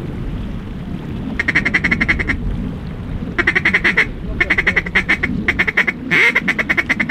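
A duck call blown in rapid chattering runs, about a dozen quick notes a second, in five bursts over about five and a half seconds, with wind rumble underneath.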